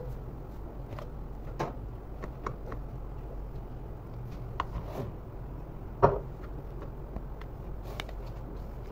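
Spoon knocking and clicking against a clear plastic tub while flour and water are stirred into pizza dough, with scattered light taps and one louder knock about six seconds in.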